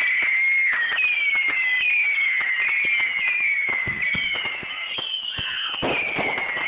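Consumer fireworks going off: a run of high whistles, each falling in pitch, about one a second and overlapping, over dense crackling pops.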